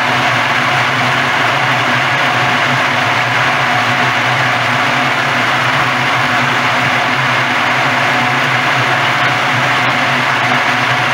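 Walnut hulling machine running steadily: a constant motor hum under an even mechanical noise.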